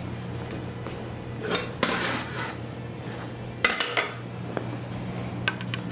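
Steel tooling being handled and adjusted on a portable clamshell lathe: scattered metal clinks and scrapes, two clusters in the middle, then a quick run of light ticks near the end.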